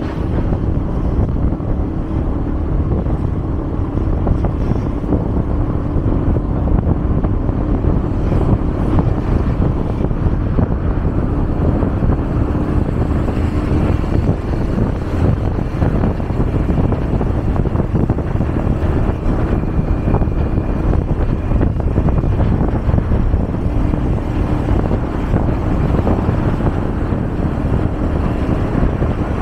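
Steady vehicle and road noise with wind buffeting the microphone, with a faint engine hum underneath.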